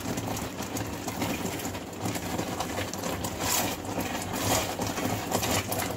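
Thick, reducing milk bubbling and spluttering in a steel kadhai while a silicone spatula stirs and scrapes across the pan bottom, giving a run of irregular soft pops and scrapes. A steady low hum runs underneath.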